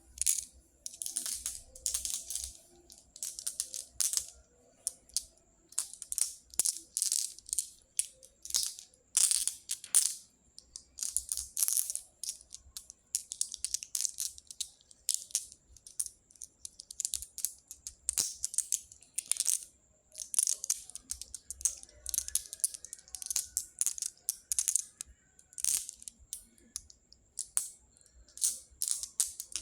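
Small pebbles handled and shaken, clattering against each other in repeated short bursts, one or two a second, with brief pauses between.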